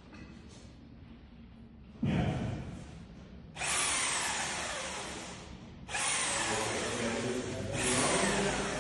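A power drill running in four bursts, each one starting abruptly with a whine that falls in pitch.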